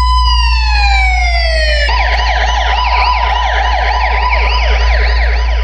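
Police-siren effect in a DJ trance sound-check track: a wail falling in pitch, switching about two seconds in to a fast yelp that sweeps up and down several times a second, over a steady deep bass drone.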